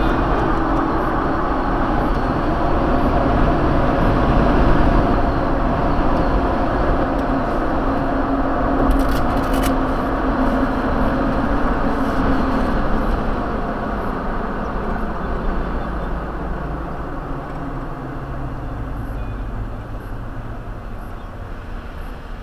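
Steady rumble of a road vehicle driving, engine and road noise together, easing off gradually over the last several seconds as it slows.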